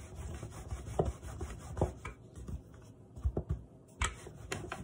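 A rolling pin rolls out paratha dough, making a steady back-and-forth rubbing sound with several light knocks.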